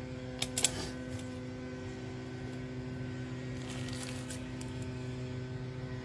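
A steady electrical hum with a few sharp small metal clicks about half a second in, as a screwdriver works the wire terminal screws on a garage door safety-beam sensor, and a brief scrape around four seconds in.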